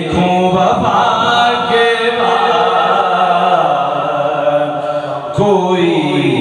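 A man singing an Urdu naat solo into a microphone, with long held, wavering notes and a steady low drone beneath; a new phrase starts about five seconds in.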